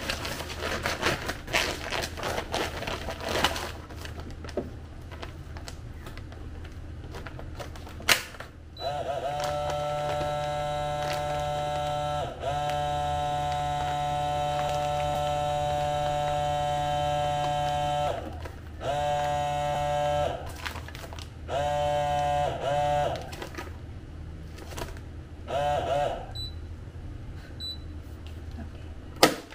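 Automatic food vacuum sealer at work on a plastic bag of lettuce. The bag crinkles as it is handled, then a click as the lid is pressed shut. The pump hums steadily for about nine seconds, its pitch rising as it starts, then runs in three short bursts. Another click comes near the end.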